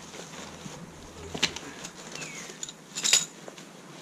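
Lightwave Wildtrek 70-litre rucksack being unpacked by hand: nylon fabric rustling as gear is pulled out, with a few sharp clicks, the loudest about three seconds in.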